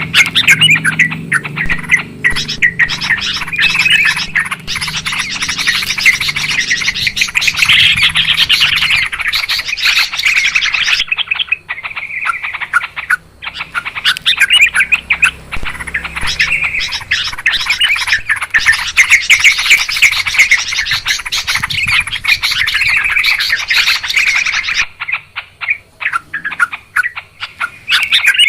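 Yellow-vented bulbuls (trucukan) chattering noisily: many loud, overlapping bubbly chirps, thinning briefly about eleven seconds in and again near the end. This is a lure call meant to draw wild bulbuls down.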